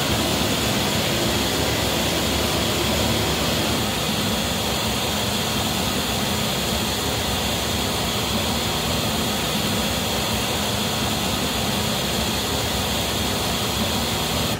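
Steady pink-noise test signal played through JBL SRX815 loudspeakers and an SRX828SP subwoofer, filling the hall, for a Smaart Live acoustic measurement of the system. It cuts off abruptly near the end.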